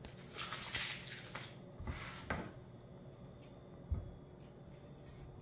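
Dry, papery onion skin rustling and crackling as an onion is peeled by hand, with a few light knocks, the clearest about four seconds in.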